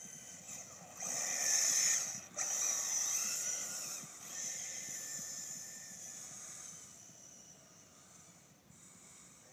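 Radio-controlled car's motor whining high-pitched at speed across turf, loudest a second or two in, briefly cutting out just after two seconds, then fading as the car runs off across the field.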